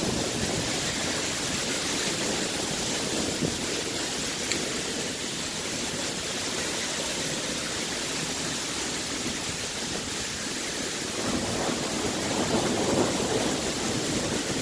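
Heavy hail coming down, a steady dense hiss of hailstones striking the ground and surfaces. About eleven seconds in, a deeper rumble swells up beneath it.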